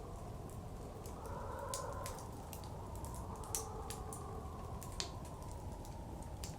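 Wood fire crackling with scattered sharp pops, two of them louder, over steady blizzard wind blowing that swells twice.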